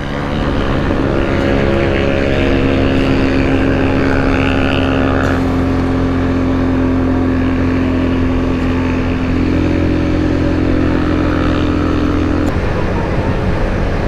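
Suzuki Gixxer 250's single-cylinder engine running at a steady speed under way, with wind rush. The steady engine note changes near the end.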